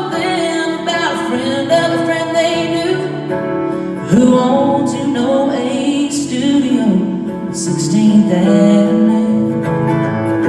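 Live acoustic performance: a woman singing over acoustic guitar, her voice coming in stronger about four seconds in.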